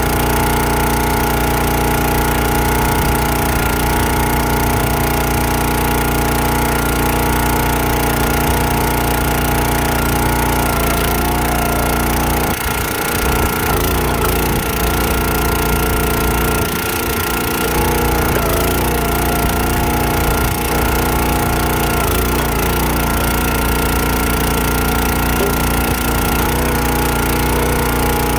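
Countyline 25-ton log splitter's small gas engine running steadily while the hydraulic ram splits logs. Its note wavers briefly twice about halfway through.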